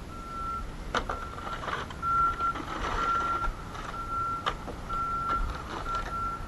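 A vehicle's reversing alarm beeping in a steady high tone, about once a second, with a few sharp clicks among the beeps.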